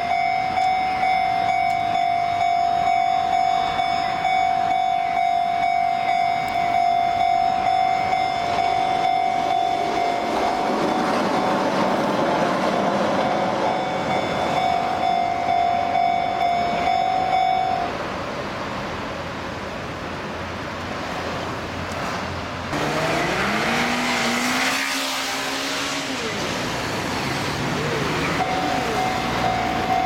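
Japanese level-crossing electronic warning bell ringing steadily, with the rumble of a passing train rising under it midway; the bell stops about 18 seconds in. After a jump in the sound, a rising whine rises and falls, and the crossing bell starts ringing again near the end.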